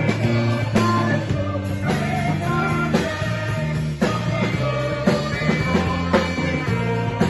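Band music with a steady bass line and held notes over a beat that falls about once a second.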